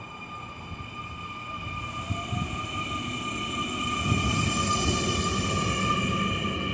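NS Sprinter New Generation (SNG) electric multiple unit pulling in close alongside the platform and slowing down, growing louder as it comes past. It makes a steady high electric whine over rumbling running noise, with a few knocks from the wheels on the rails.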